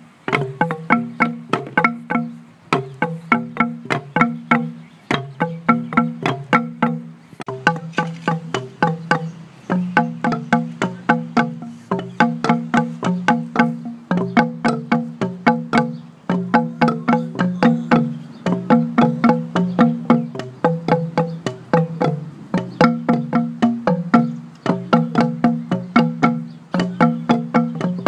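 Kāʻekeʻeke, bamboo stamping tubes, struck end-down on a mat by several players in a quick, steady rhythm of hollow, pitched knocks. The tubes are cut to different lengths, so the strokes sound at several pitches.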